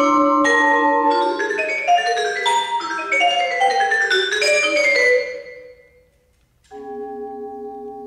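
Solo Musser vibraphone played with mallets: a fast, dense flurry of struck notes that ring into one another, then thins out and dies away about five seconds in. After a brief hush, a few held tones sound together as a soft sustained chord near the end.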